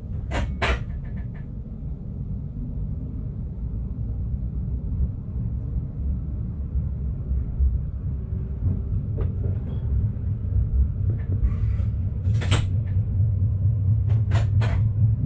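Low, steady rumble of a Stadler GTW train rolling slowly, heard inside the driver's cab, growing slightly louder in the second half. Over it come a few short sharp clicks: a pair near the start, one about twelve seconds in, and another pair near the end.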